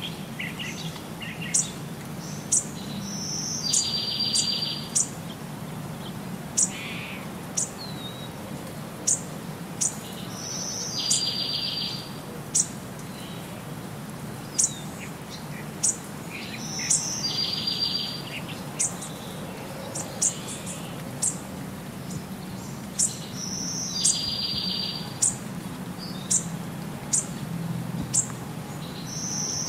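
A looped birdsong recording: short high chirps about once a second, with a buzzy trilled call about a second long that comes back every six or seven seconds, over a low steady hum.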